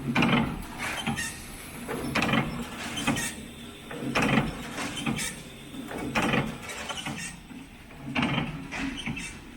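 PFM Hurricane horizontal flow wrapper running, its mechanism cycling with a repeated mechanical stroke about once a second over a steady low hum.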